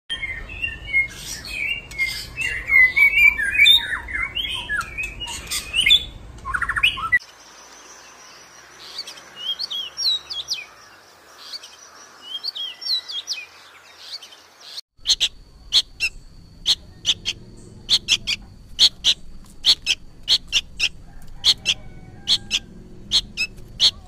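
Songbirds singing, in three recordings cut together. First comes dense, varied warbling. At about seven seconds it gives way to a thinner, high song over a quieter background. From about fifteen seconds there is a rapid run of sharp, short high notes, two or three a second.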